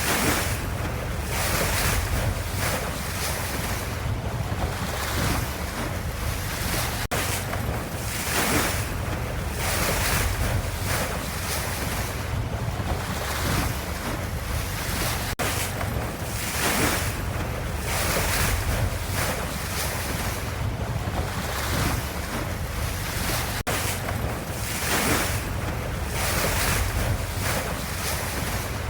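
Ocean waves washing in one after another, a steady surging hiss over a deep low rumble.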